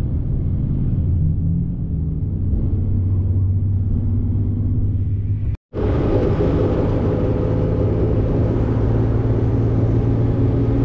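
Tuk-tuk engine running steadily as the vehicle drives along, a low hum. It breaks off briefly about five and a half seconds in, then comes back louder.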